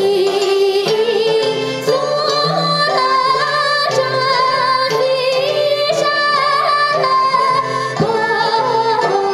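A woman singing a classical Tibetan toeshay song in a wavering, ornamented melody, accompanied by plucked long-necked lutes and a hammered dulcimer.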